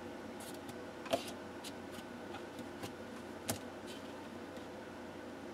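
String being unwound from the button-and-string ties on a cardboard box: a string of faint ticks and scrapes, with two sharper clicks about a second in and about three and a half seconds in.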